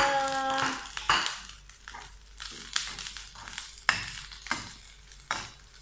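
Wooden spatula stirring and scraping fried rice around a metal pot, a sharp scrape every second or so, over a light sizzle. A held sung note trails off in the first second.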